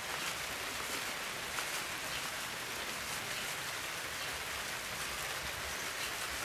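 Steady, even hiss of light rain falling on a surface.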